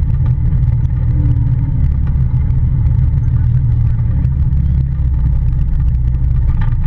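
Polaris Ranger side-by-side engine running steadily under way, a constant low rumble.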